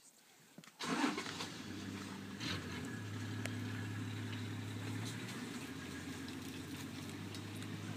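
A motor vehicle's engine idling steadily, coming in abruptly about a second in, with scattered faint clicks over it.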